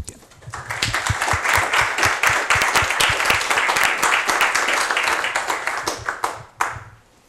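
Audience applauding: many hands clapping, swelling within the first second, holding steady for about five seconds, then dying away, with one last clap shortly after.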